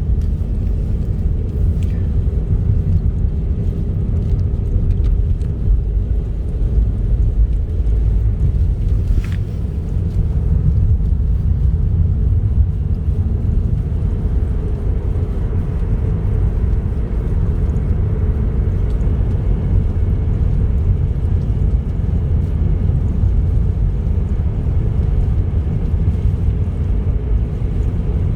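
Car driving along a highway: a steady low rumble of engine and road noise.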